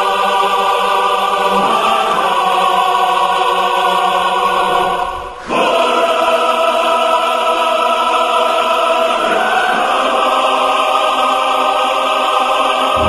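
Choral music: a choir holding sustained chords, with a brief break about five seconds in before it comes back in.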